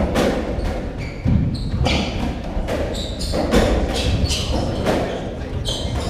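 Racketball rally in an enclosed squash court: the ball struck by rackets and hitting the walls and floor in a run of sharp knocks and thuds, with trainers squeaking high on the wooden floor between shots.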